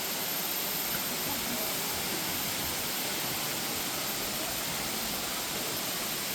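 Steady, even rush of water, like a waterfall or fast stream, unbroken throughout.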